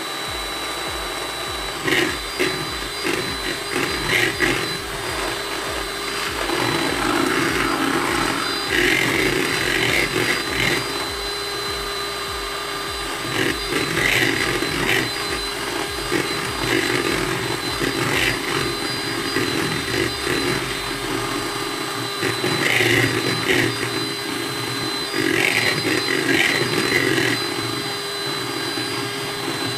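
Electric hand mixer running steadily, its beaters whipping egg whites with a little lemon juice as they thicken toward stiff peaks. Bursts of clatter from the beaters hitting the bowl come several times.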